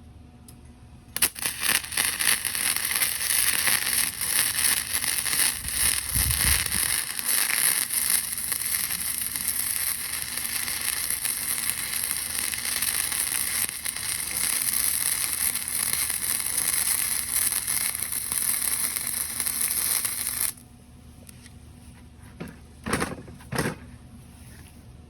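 Lincoln Weld-Pak 155 wire-feed welder arc crackling steadily as a bead is run. It starts about a second in, stops abruptly at about 20 seconds, and is followed by a couple of light knocks.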